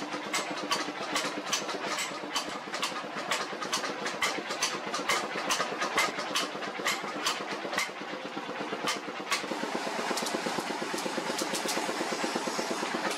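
Hand-hammer blows on a red-hot steel cleaver blank on an anvil, about two strikes a second, over a steady machine drone. After about eight seconds the blows thin out and a steadier hiss takes over as the blank is reheated in the coal forge fire.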